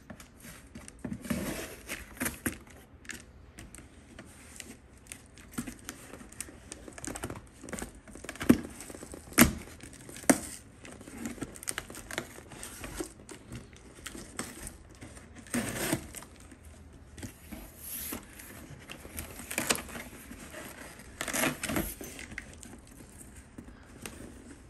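Cardboard mailing box being torn open by hand: irregular rips and crinkling of cardboard flaps, with a couple of loud sharp snaps a little over a third of the way in.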